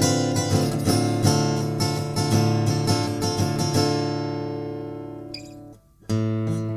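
Michael Kelly V15CE acoustic guitar, cedar top with mahogany back and sides, played as a run of plucked notes and chords. About two-thirds of the way through a chord is left to ring and fade away, then after a short break the playing starts again.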